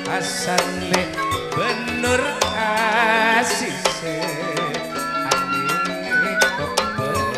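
Madurese gending played by a gamelan ensemble: frequent hand-drum strokes over sustained ringing tones, with a wavering vibrato melody line from about two seconds in.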